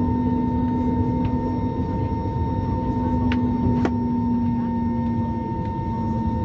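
Airbus A320neo cabin noise while taxiing: the engines' steady hum, a low tone and a higher whine over a broad rumble. Two faint clicks about three and a half seconds in.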